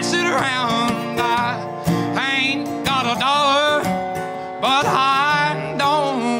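Live acoustic country music: two guitars, one a metal-bodied resonator guitar, strummed and picked, with a sliding, wavering melody line carried over the chords.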